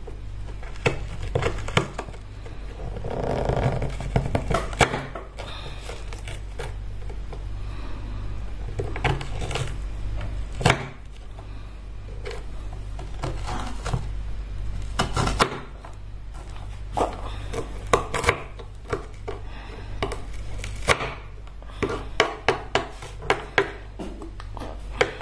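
Kitchen knife chopping vegetables on a cutting board: irregular sharp knocks with some scraping, coming quicker near the end, over a steady low hum.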